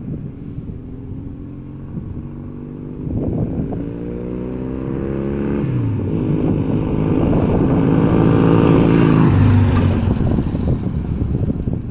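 1973 Norton Commando 850's parallel-twin engine accelerating up the road and passing: the pitch climbs, drops at a gear change about halfway through, then climbs again as it gets louder, and falls as the bike goes by near the end. Wind rumbles on the microphone underneath.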